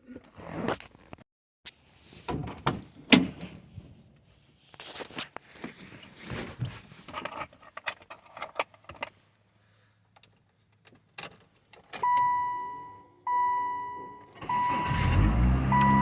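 Keys and small parts clicking and knocking, then a car's warning chime ringing repeatedly about once every second and a half. About two seconds before the end, the 1998 Saturn SL1's four-cylinder engine catches and settles into a steady idle, starting again now that its burnt L5 fuse wire connection has been repaired.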